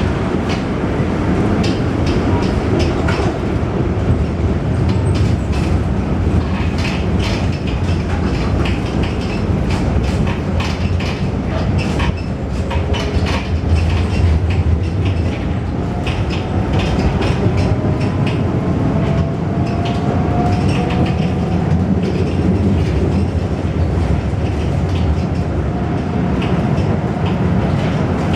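Ageing tramcar heard from inside while it runs along lively track: a steady rumble of wheels on the rails with frequent clacks and knocks over the rail joints. A faint whine rises in pitch about two-thirds of the way through.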